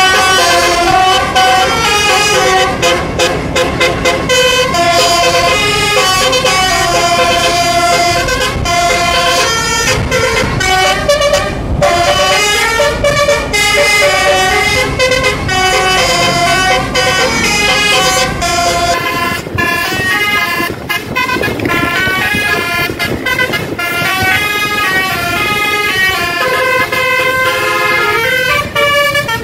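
Bus 'telolet' (basuri) multi-tone musical air horn playing melody after melody, several horn notes sounding together and stepping quickly up and down in pitch without pause.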